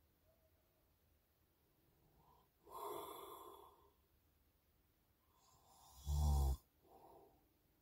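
A sleeping man snoring, picked up by a phone microphone. There is a breathy snore about three seconds in, then a louder, fluttering snore just after six seconds, followed by a softer breath.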